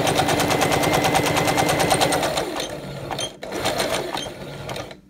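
Electric sewing machine stitching at speed, a fast even run of needle strokes that slows and stops about two and a half seconds in, followed by a few quieter handling clicks.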